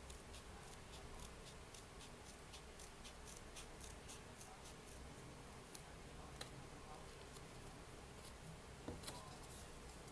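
Scissors snipping through folded craft paper: a faint run of small, repeated snips, with a few sharper clicks later on.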